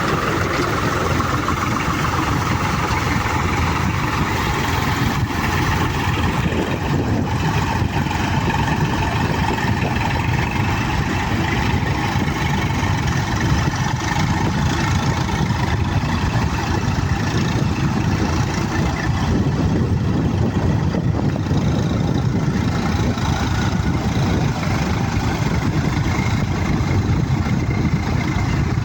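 Swaraj 735 FE tractor's diesel engine running steadily.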